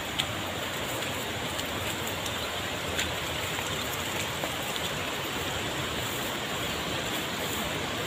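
Steady rushing of a river's water over rocks, an even hiss with no pitch, with a couple of faint clicks.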